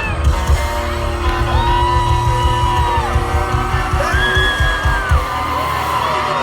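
Live country music played loud through a concert PA: a singer holds long, sliding notes over a band with a driving drum and bass beat, and fans whoop and yell. The drums and bass drop out about five seconds in, leaving the voice and higher instruments.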